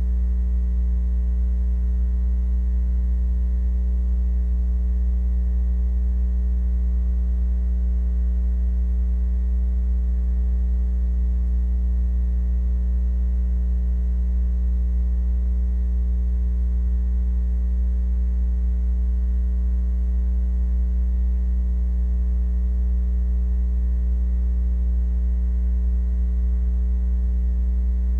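Steady electrical mains hum, low-pitched and unchanging, with a ladder of overtones above it and nothing else over it.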